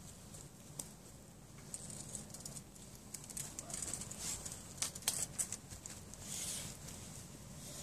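Faint outdoor background with scattered small clicks and brief high hissy sounds, busiest about four to six seconds in.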